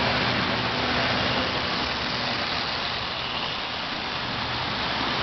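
Marx tinplate O-gauge toy trains running on three-rail metal track: a steady running noise of wheels and electric motors, with a low hum that fades in the first second or so, as a streamlined passenger train passes close by.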